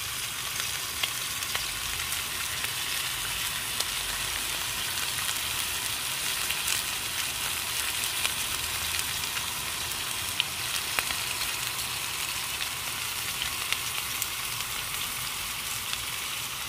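Pork chops sizzling in a frying pan on a camping gas stove: a steady frying hiss peppered with small crackles and pops.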